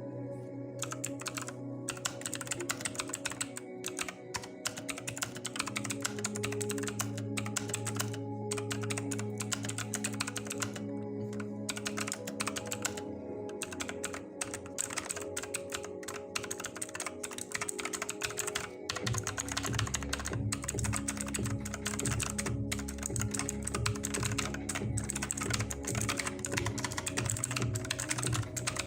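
Typing on a Redgear Shadow Blade mechanical gaming keyboard: fast, irregular key clicks, over background music that picks up a steady beat about two-thirds of the way through.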